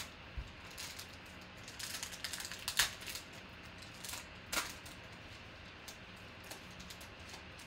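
Foil trading-card pack wrappers crinkling and tearing as they are opened by hand: a run of quick crackles and clicks, busiest about two to three seconds in, with two sharper snaps.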